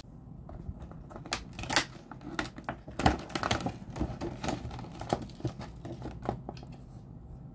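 Stiff clear plastic clamshell packaging crackling and clicking irregularly as it is handled and the steering wheel lock is lifted out of it.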